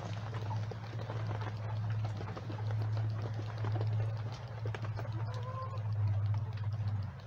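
Chickens in a coop with rain pattering, and one short hen call about five seconds in, over a steady low hum that cuts off near the end.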